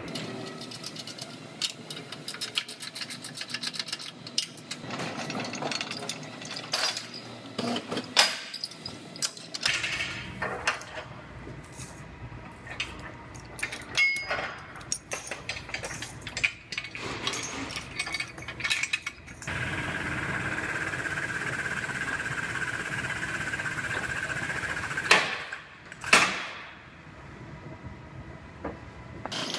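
Steel pulling chains clanking and knocking as a frame machine's pulling tower is rigged to a car's damaged front frame rail. This is followed by about five seconds of a steady machine hiss with a high whine as the pull is made, then two sharp loud whooshes.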